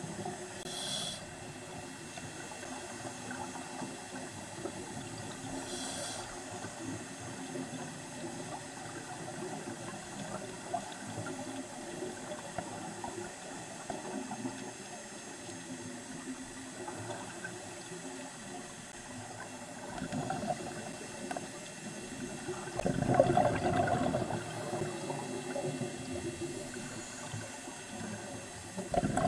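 Scuba divers breathing through regulators underwater, with a steady low bubbling wash throughout. There is a short hiss about a second in and again about six seconds in, and a louder rush of exhaled bubbles from about twenty-three seconds in.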